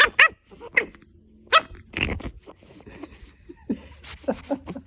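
A dog vocalizing in a string of short barks and yelps, with the loudest burst about two seconds in.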